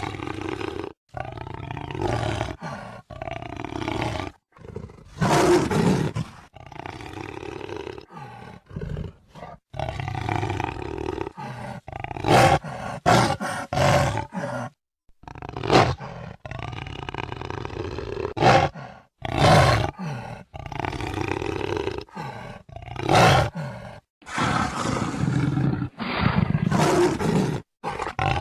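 A jaguar roaring again and again, a run of separate calls spliced together with abrupt cuts and short silent gaps between them.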